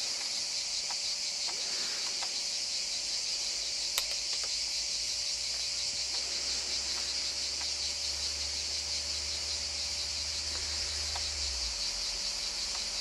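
A steady, shrill chorus of cicadas. A single sharp click about four seconds in, and a low rumble in the second half.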